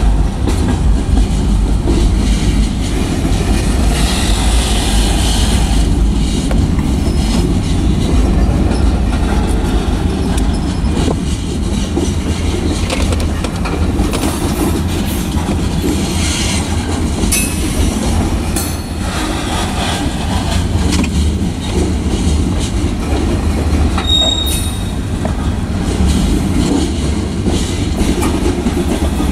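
Covered hopper cars of a freight train rolling past: a steady heavy rumble of steel wheels on the rails, with a few brief high wheel squeals in the second half.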